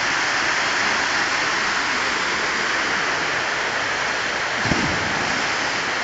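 Waterfall rushing, a steady loud roar of falling water, with one brief low thump about three-quarters of the way through.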